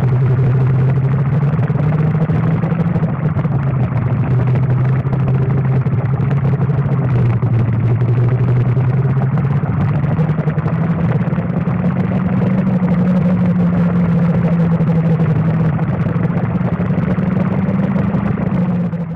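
Racing kart engine running at high revs, its pitch drifting slowly up and down, cutting off suddenly at the very end.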